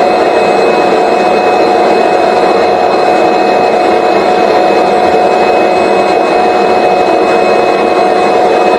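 Vacuum cleaner motor running steadily with a constant high whine, drawing lint out of a clogged dryer vent.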